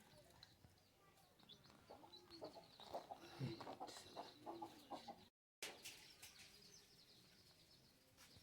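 Domestic fowl clucking faintly, in short calls mixed with light clicks and knocks, mostly in the middle of the stretch.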